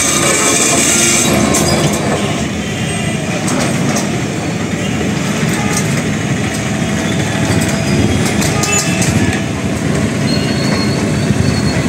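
Road-works machinery running on a street: a steady low mechanical rumble with a few sharp clanks.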